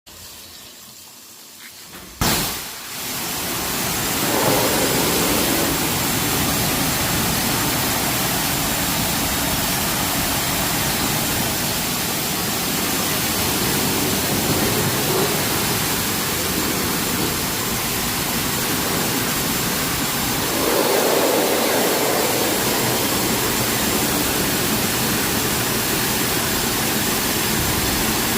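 High-pressure washer spraying water to clean an air conditioner: a loud, steady hiss of spray and pump that starts abruptly about two seconds in, swelling briefly now and then as the jet moves.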